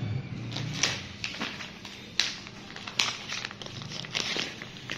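Viscose cloth rustling as it is spread out and handled by hand, with a few sharp crackles at irregular moments.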